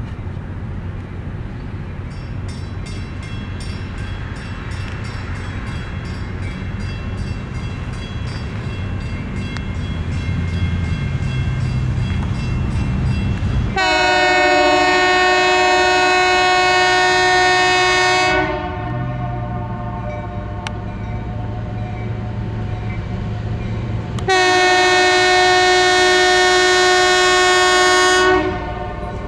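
Approaching diesel freight locomotive, its engine rumble growing louder. Then two long blasts on its multi-note air horn, each about four seconds long, with a pause of about six seconds between them.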